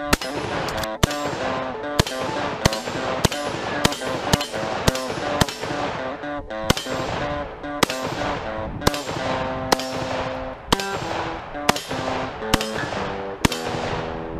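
Rifle fired shot after shot, about seventeen sharp reports spaced roughly half a second to a second apart, over background guitar music.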